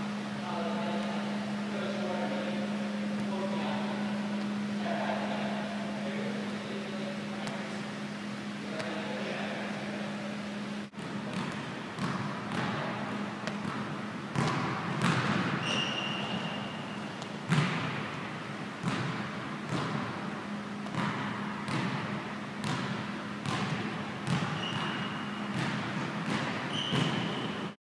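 Sneakers tapping and scuffing on a hardwood gym floor during side-stepping resistance-band walks, with short high sneaker squeaks a few times in the second half. A steady low hum runs under the first part.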